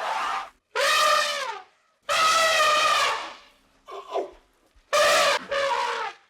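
An animal calling repeatedly: about six loud, drawn-out calls, each dropping in pitch at its end, with short pauses between them.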